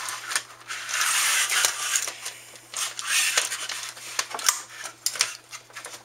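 Plastic and metal clicks and knocks from a CD-ROM drive being taken apart by hand, its casing clamps pushed to release, with a scraping stretch about a second in.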